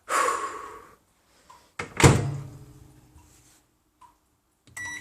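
Microwave oven door clunking, once at the start and again about two seconds in, then a short electronic keypad beep near the end.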